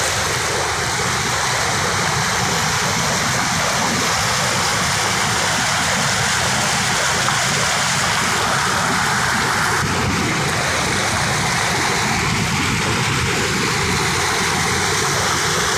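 Steady rushing of fast-flowing muddy floodwater.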